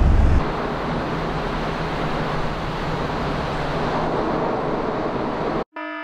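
Steady traffic noise from the M4 motorway on the road bridge overhead, heard from the canal beneath it. Near the end it cuts off abruptly and an electronic alarm beep starts.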